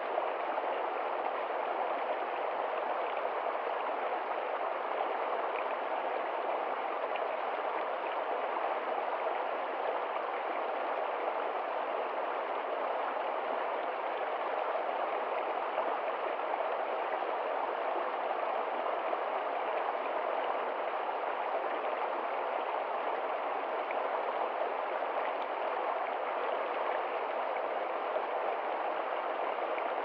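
Shallow stream running over rocks in small cascades: a steady, even rush of water.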